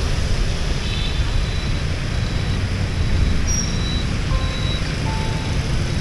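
Busy city street traffic, mostly motorbikes and cars: a steady, heavy low rumble with a few brief faint high tones scattered through it.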